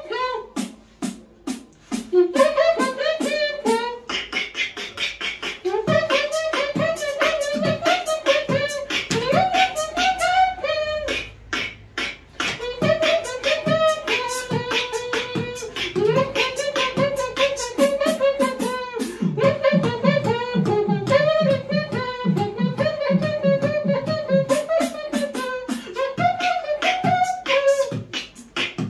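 Human beatboxing: a fast run of mouth clicks and kick-like pops under a hummed, wavering tune, running almost unbroken with a short dip about eleven seconds in.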